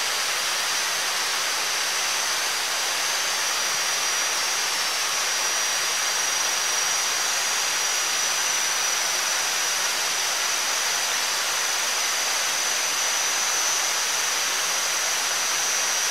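Steady outdoor background noise: an even rushing hiss with a thin, high, steady whine running through it.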